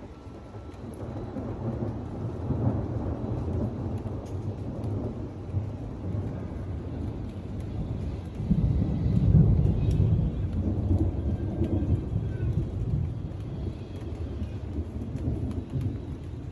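Thunder rumbling in a storm: a deep, rolling rumble that builds from about a second in, peaks in a loud peal around nine seconds in, then slowly dies away.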